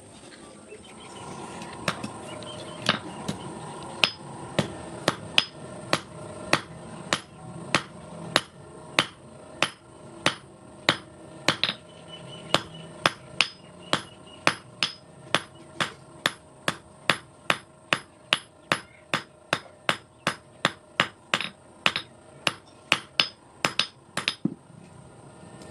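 Blacksmith's hammer striking steel on an anvil in a steady forging rhythm, about two blows a second, over a steady hum.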